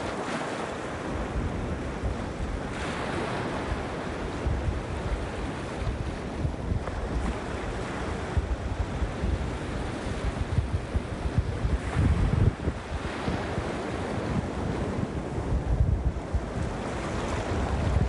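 Small ocean waves breaking and washing up the sand around a shore rock, with wind buffeting the microphone in low rumbling gusts, strongest about two-thirds of the way through and again near the end.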